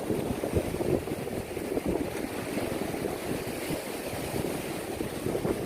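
Wind buffeting the microphone with a rough, gusting rumble, mixed with the wash of ocean waves.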